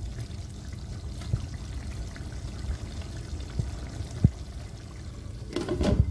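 Chicken curry gravy cooking in a pan, a steady liquid bubbling, with a few small clicks of a spoon, one sharp knock a little past four seconds, and a louder burst of stirring near the end.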